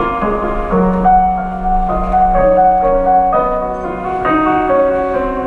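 Slow piano music, a melody of held notes that change about once a second.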